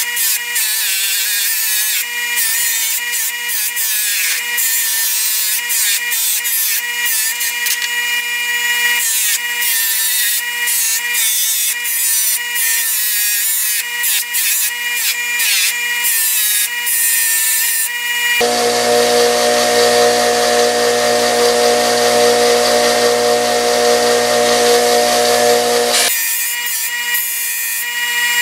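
Bench grinder running with an old pocketknife's metal held against its spinning wheel: a steady motor hum under a rough scraping hiss as the grime is cleaned off. About two-thirds through, the sound turns heavier and deeper for several seconds, then switches back.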